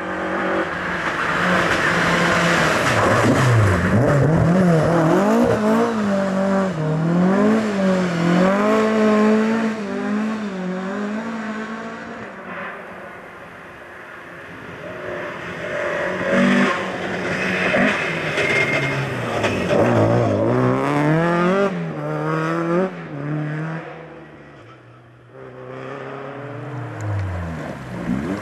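Rally cars driven flat out along a tarmac stage, their engines revving hard, the note climbing and dropping with each gear change. One car passes and fades out about halfway through, another builds up and fades, and a third comes in near the end.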